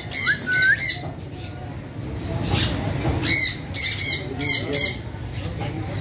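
Parrots calling: a few harsh, short squawks with some brief rising whistled notes in the first second, then a quicker run of about five squawks between three and five seconds in.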